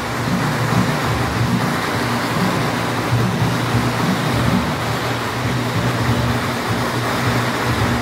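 Loud, dense temple-procession music accompanying a dancing deity-puppet troupe, with a steady low drone underneath.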